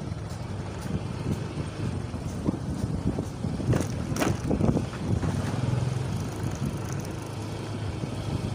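A motorcycle passes close by in a narrow lane, with its engine humming for a second or two past the midpoint, over a steady low rumble of street traffic.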